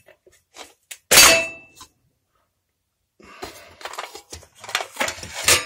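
A single sharp metal clang with a short ringing tail about a second in, as the blue-flame paraffin heater's snuffer is tripped. From about three seconds in, a busier run of lighter metallic rattling and knocking as the heater's parts are handled.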